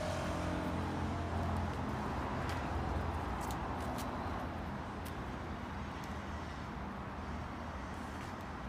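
Steady outdoor street ambience: a low, even traffic rumble, with a few faint clicks on top.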